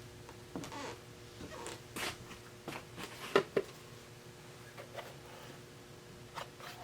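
Objects being handled and set down: scattered rustles and light knocks, with two sharper knocks a little over three seconds in, over a faint steady hum.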